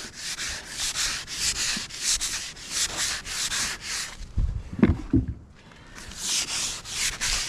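Hand tool scraping back and forth over wood in quick, rhythmic strokes, about two to three a second, taking the bumps off a log's surface. The scraping stops about halfway for a moment, with a couple of low thumps, then starts again.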